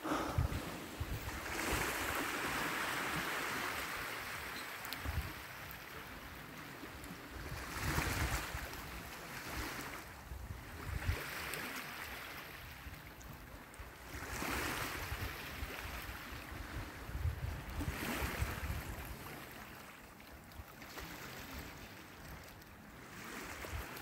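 Small sea waves washing onto a pebble shore, swelling and fading every few seconds, with wind gusting on the microphone.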